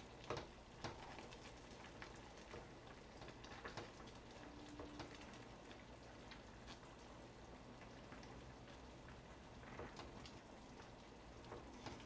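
Faint bubbling patter of a pot of fish cake soup simmering on a gas stove, with scattered light clicks of chopsticks against the pot and fish cakes as they are stirred.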